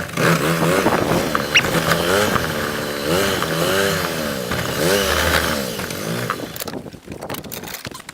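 Golf cart driving, its motor rising and falling in pitch over and over as it speeds up and slows down, dying away near the end.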